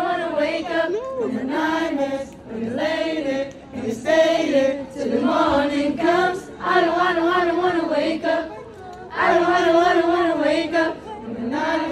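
Voices singing a melody unaccompanied, in phrases of one to two seconds with short breaks between them.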